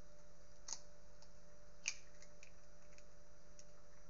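Light, scattered clicks and taps of eggshell halves being handled while an egg yolk is separated from the white, with two slightly sharper clicks about one and two seconds in, over quiet room tone with a faint mains hum.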